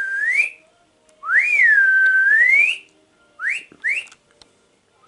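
A person whistling a call phrase: a short up-and-down whistle, then a long one that rises, dips, holds and rises again, then two quick rising whistles near the end.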